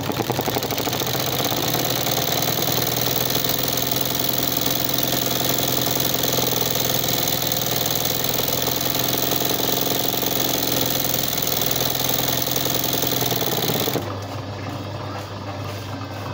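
Embroidery sewing machine running fast and steadily as it stitches free-hand embroidery on cloth in a hoop, a rapid, even needle clatter. It stops abruptly about two seconds before the end, leaving a low hum.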